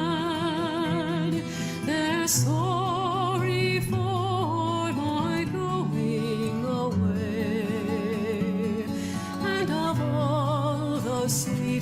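Background music: a melody with heavy vibrato over long held bass notes.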